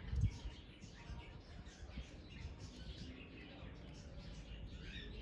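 Faint bird chirps over a low background rumble, with small clicks and a soft knock just after the start.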